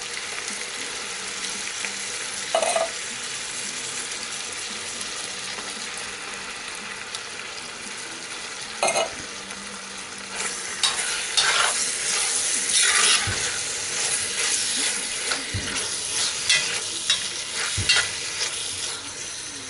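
Browned meat sizzling steadily in a cast iron pot, with a couple of knocks and then, from about ten seconds in, a busy run of stirring and scraping as the chili beans are worked in.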